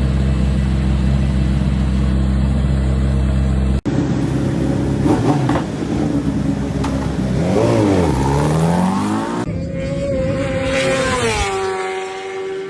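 Racing superbike engines. First a steady, even engine note for a few seconds, then a bike's engine rising and falling in pitch as it revs through the gears, and near the end a high-pitched engine note that drops in pitch as a bike passes.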